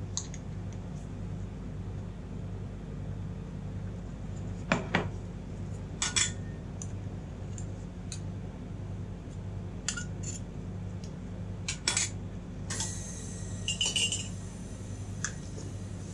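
A metal spoon clinks against a glass Nutella jar and a steel spatula taps and scrapes on a steel ice cream roll cold plate, in scattered sharp clicks and short scrapes, over a steady low hum.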